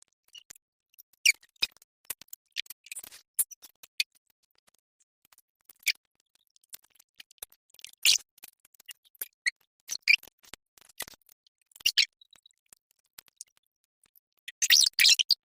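Close-miked mukbang eating sounds: irregular wet mouth clicks and smacks of chewing food, with a denser, longer burst near the end.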